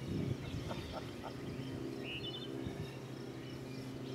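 Outdoor ambience: a steady low hum, with a short bird chirp about two seconds in.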